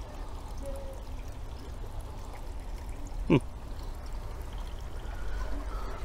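Water dripping and trickling into a concrete fish pond, a steady light splashing. A short rising chirp sounds once, a little past halfway.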